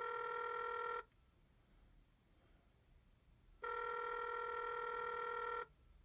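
Telephone ringback tone, the ringing a caller hears on a line, played from a rotary phone's sound module through a small speaker: a steady tone ends about a second in, and a second two-second ring comes on a little past three and a half seconds. It signals that the dialed number is going through.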